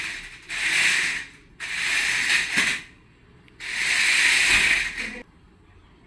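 A gesture-controlled stunt RC car's motors driving its wheels in four bursts of about a second each, a hissing whir with short stops between, as the car starts and stops on the hard floor.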